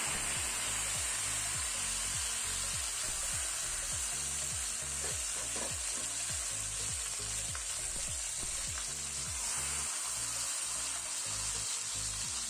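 Hot oil sizzling steadily around a whole pressure-cooked, masala-coated chicken frying in a shallow layer of oil in a pan.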